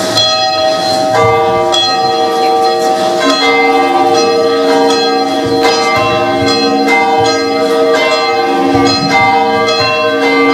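Ringing bell chimes, as in a carillon: a quick, even run of struck bell notes over held lower notes that come in about a second in.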